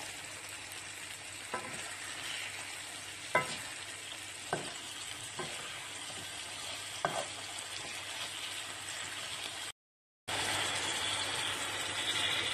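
Diced potatoes and cherry tomatoes sizzling in oil in a metal pan while a wooden spoon stirs them, knocking against the pan a few times. After a brief cut to silence near the end, water is poured into the hot pan and the hiss gets louder.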